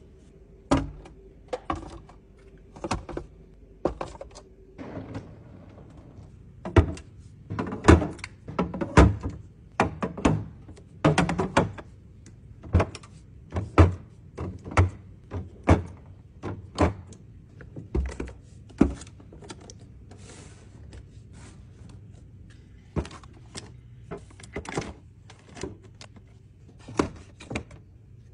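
Irregular knocks, clicks and thunks of kitchen items and containers being handled and set down during restocking, some in quick runs and others spaced a second or more apart.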